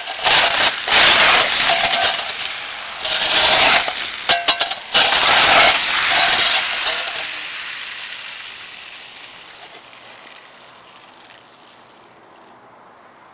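A small flat shovel scraping and chipping ice off a concrete driveway, with ice shards clinking and rattling. It makes several loud scrapes in the first six seconds, then fades away.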